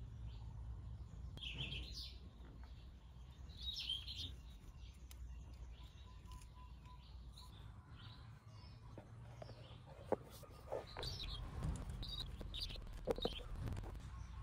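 Birds chirping now and then in the background. Several light clicks and taps come in the second half as a plastic cover and a screwdriver are handled.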